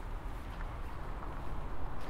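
Steady low rumble and hiss of riding a bicycle along a city street: tyres rolling on the road and wind on the microphone, with no distinct single event.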